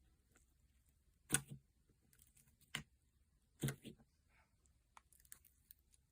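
Thick slime being pressed and folded by hand, giving sharp little pops and clicks: three clear ones about a second or so apart, then a run of fainter clicks near the end.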